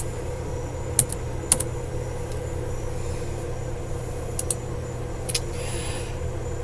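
A handful of sharp, short clicks, some in quick pairs, over a steady low electrical hum.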